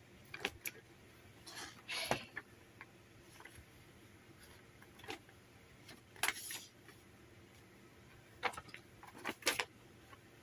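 A folded paper instruction leaflet being unfolded and handled, giving short crinkles and rustles now and then, in about six separate bursts.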